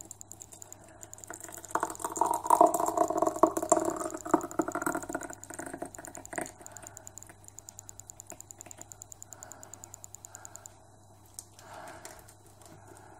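Thick cherry jam being poured from a stainless mixing bowl into a glass jar, with clattering, scraping and clinks of bowl against glass for a few seconds from about two seconds in. A fast, even ticking, about seven a second, runs faintly under it at the start and again in the second half.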